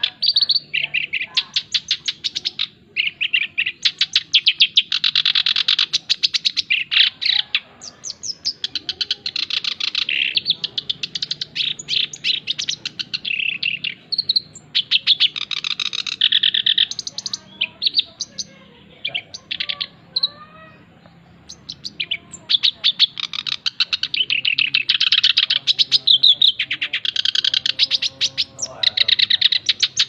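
Male black-browed reed warbler singing: long, fast runs of high notes in bursts of a few seconds, separated by short pauses. There is a quieter stretch of softer calls partway through.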